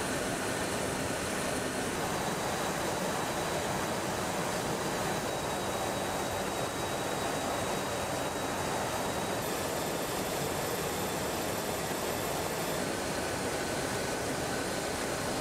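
Steady rushing cabin noise on the flight deck of a C-17 Globemaster III in flight: airflow and jet engine noise, even and unbroken, with a faint high whine that shifts pitch a couple of times.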